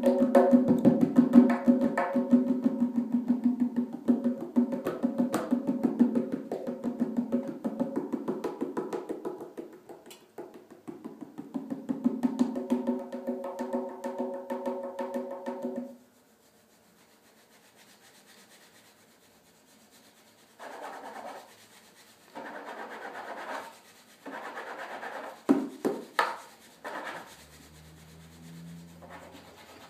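Tonbak (Persian goblet drum) played solo: fast, dense finger strokes and rolls, easing briefly once before they stop abruptly about halfway through. After that come quieter short rubbing and scraping sounds, with a few sharp taps near the end.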